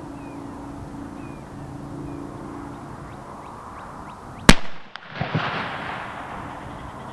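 A .50 BMG bullet from a Barrett rifle passing close by with one sharp supersonic crack, followed under a second later by the distant rifle's duller muzzle report, which fades away in echo.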